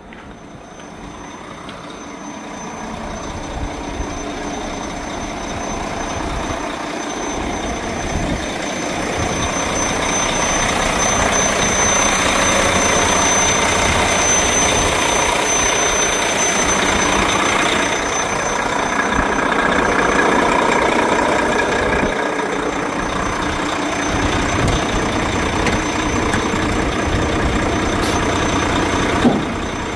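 Volvo FH500 dump truck's D13 straight-six diesel running while driving the hydraulic tipping ram that raises the dump body, growing louder over the first dozen seconds and then holding steady, with a thin high whine over it. A short sharp knock near the end.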